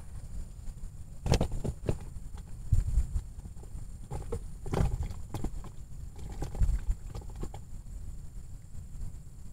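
Wind rumbling on the microphone, with irregular knocks and rustles from gloved hands handling a fishing hook and line close to the microphone.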